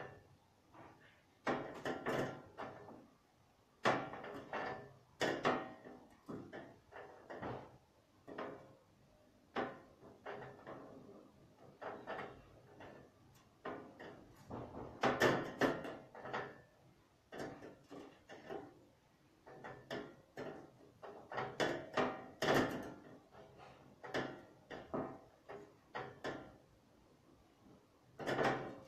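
Scattered, irregular knocks and clatter of objects being handled off camera.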